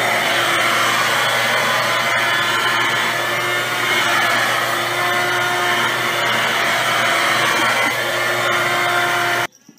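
A red electric stick vacuum cleaner runs steadily with a high motor whine while its nozzle is pushed over a cat's fur. It cuts off abruptly near the end.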